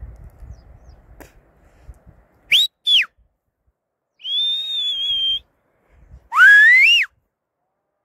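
A herder whistling to a flock of sheep and goats. There are two short rising-and-falling whistles, then a longer held whistle, then one that rises in pitch near the end.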